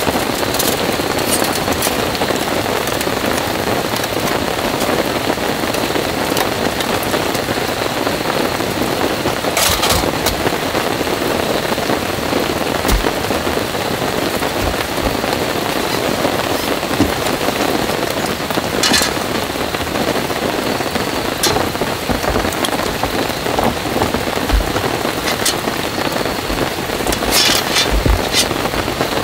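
Heavy rain falling steadily, a dense even hiss, with a few sharp clicks scattered through it.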